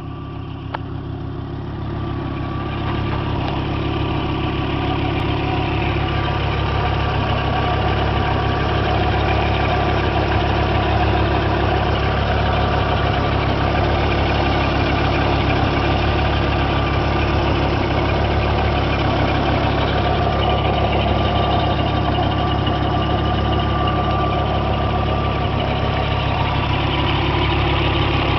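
Audi 2.3 20-valve 7A inline five-cylinder engine idling with a strange noise that the owner likens to a chaff cutter, coming from the front of the engine around the timing pulley. It grows louder over the first few seconds, then runs steadily.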